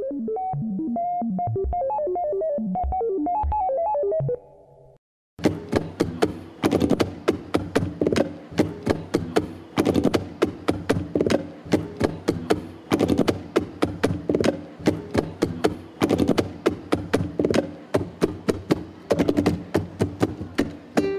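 A short electronic logo jingle of twinkling synth tones, a brief silence, then background music with a steady, quick percussive beat.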